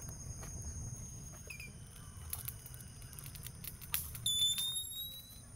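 Tropical forest ambience: a steady high-pitched insect drone over a low rush of water. About four seconds in there is a sharp click, followed by a short whistled call, under a second long, that rises slightly in pitch.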